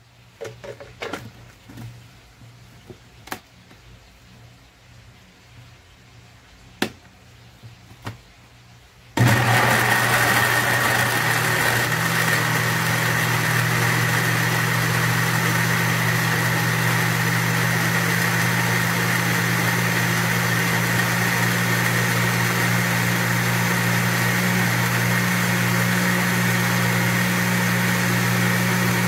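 A few light clicks and knocks, then about nine seconds in an electric countertop blender switches on suddenly and runs steadily, its motor blending a garlic, yogurt and mayonnaise sauce.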